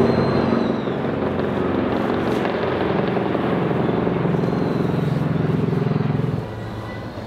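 Background music of low, sustained droning chords that shift lower and get quieter about six seconds in.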